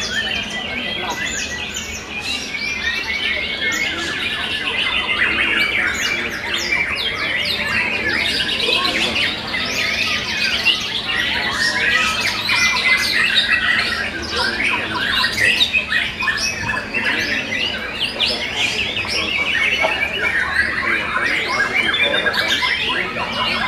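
Several young white-rumped shamas (murai batu) singing over one another: a dense, unbroken tangle of quick whistles, chirps and chattering phrases.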